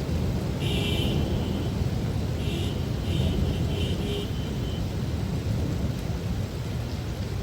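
Heavy rainstorm: a steady noise of rain over a deep, continuous low rumble. A few short high-pitched tones come through about a second in and again around three seconds in.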